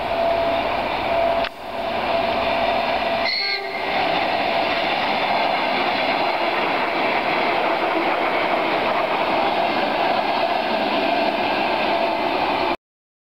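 An ER2 electric multiple unit passes close by with steady wheel-and-rail noise and a steady whine. A brief higher tone sounds about three and a half seconds in, and the sound cuts to silence just before the end.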